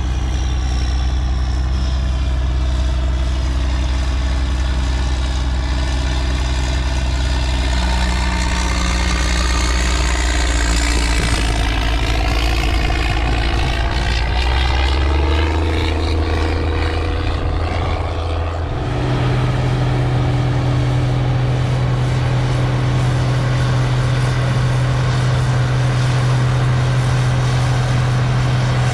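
Farm tractor engine running steadily with a low drone. Its speed steps up a little past the middle and again a few seconds later, then holds.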